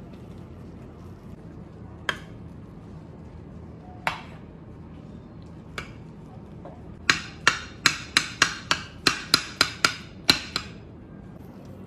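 A metal knife chopping soft, syrupy food in a ceramic baking dish, the blade knocking against the dish: a few separate knocks, then a quick run of about a dozen at roughly three a second in the second half.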